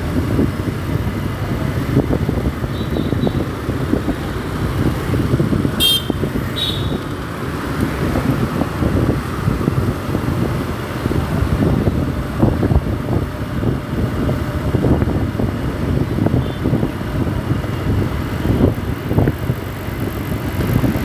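Riding a motorcycle through city traffic: the engine runs under a steady, fluttering rumble of wind on the microphone, with two short high-pitched beeps about six seconds in.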